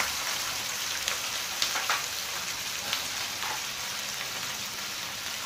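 Onion and capsicum sizzling steadily in a hot pan, with vinegar being poured in over soy sauce, and a few short clicks of the steel spoon against the pan.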